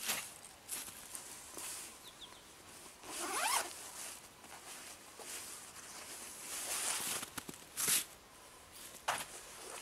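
A zipper pulled open with a quick rising sweep about three seconds in, amid several brief swishes and rustles of nylon fabric as outdoor gear is unpacked and handled.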